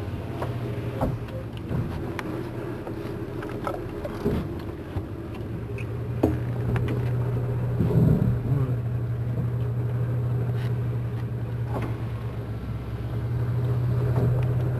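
A vehicle's engine running with a steady low hum, heard from inside the cabin, with a few scattered light knocks and bumps.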